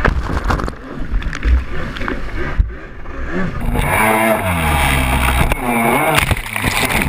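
Freestyle jet ski's engine revving up and down repeatedly over the rush and splash of water spray, with a few sharp knocks of the hull hitting the water early on.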